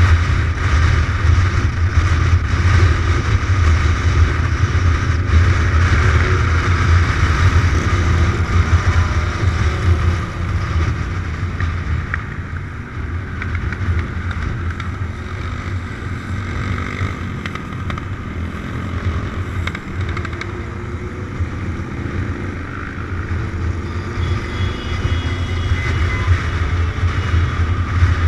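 Kawasaki motorcycle's engine running steadily at cruising speed, a low drone under the hiss of wind rushing past the bike-mounted camera. It eases off a little in the middle and picks up again near the end.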